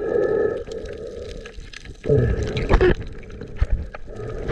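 Water gurgling and bubbling around an underwater camera, with two louder bursts, one at the start and one about two seconds in.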